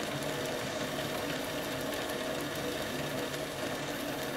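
Homemade two-cylinder, double-acting model steam engine running steadily at about the slowest speed it will run, with an even mechanical running sound and hiss.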